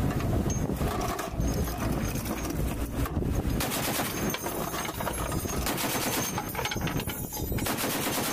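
M2 .50-caliber heavy machine gun on a boat's deck mount firing several bursts, starting about three and a half seconds in, with short gaps between them. Before the first burst there is a steady low rumble.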